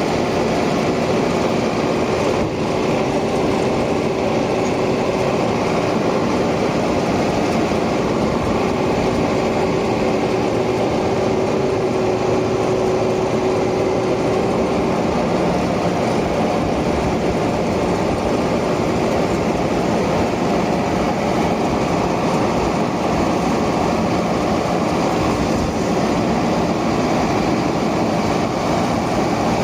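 Zetor Forterra 140 HSX tractor's diesel engine running steadily while working a New Holland 648 round baler. A steady whine sits over the engine and fades out about halfway through.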